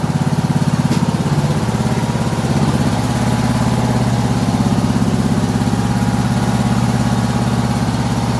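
Toro LX420 lawn tractor engine running steadily at idle, with a fast, even pulsing. The mower now starts and runs despite the electrical fault it came with.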